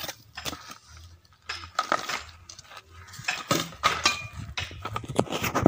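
Irregular metal clinks and knocks of a large metal cooking pot and its ash-covered lid being handled as the lid is taken off to break the dum seal of a slow-cooked biryani.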